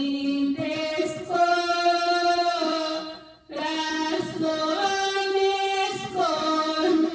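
A woman singing a Spanish Christian praise song unaccompanied, holding long notes, with a brief pause for breath about three seconds in.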